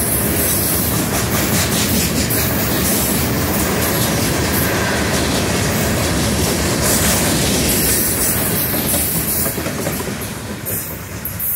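Freight train's open-top hopper cars rolling past close by, a steady loud rumble with the wheels clattering over the rails. It fades about ten seconds in as the last car goes by.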